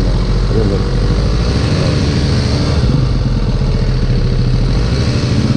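Sport motorcycle engine running steadily at low speed as the bike rolls slowly along.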